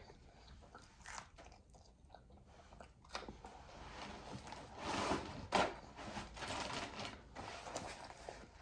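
A person chewing and biting food close to the microphone, with soft crunching. It grows busier about three seconds in, with a couple of sharper clicks around the middle.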